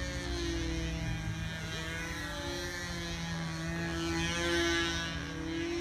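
Yatsenko Shark control-line stunt model plane's motor and propeller buzzing steadily, its pitch swinging up and down as the plane circles the pilot on its lines.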